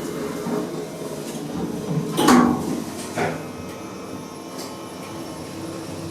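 Lift doors sliding shut on a KONE lift with a second-generation EcoDisc machine. There is a clunk about two seconds in and a lighter one a second later, over the steady hum of the lift.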